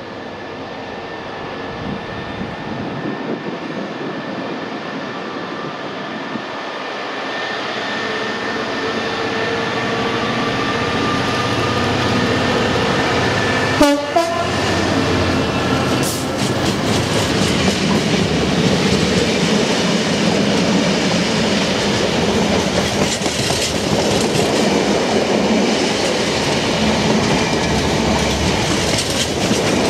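Class 66 diesel-electric locomotive (EMD two-stroke V12) approaching, its engine getting steadily louder, and passing about halfway through. A long rake of open box freight wagons follows, rolling by with a steady clickety-clack of wheels over the rail joints.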